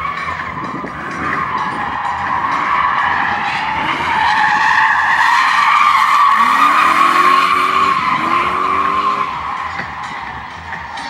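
BMW E36 drifting: its tyres squeal continuously, building to their loudest in the middle, as the engine revs climb twice in the second half.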